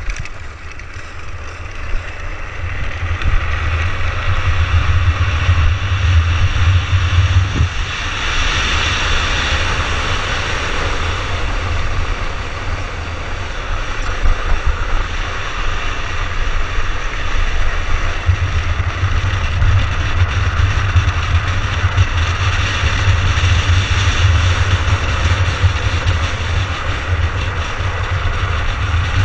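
Wind buffeting a helmet-mounted camera as a drift trike coasts fast downhill, a heavy rumble that comes and goes in gusts, with an even hiss of the wheels on the asphalt that swells about eight seconds in.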